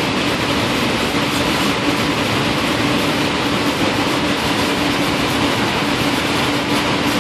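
Steady machine noise with a constant low hum.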